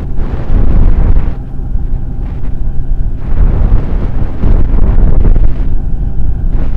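Heavy wind buffeting on the microphone of a moving motorcycle, with the engine's steady hum showing through twice where the wind briefly eases.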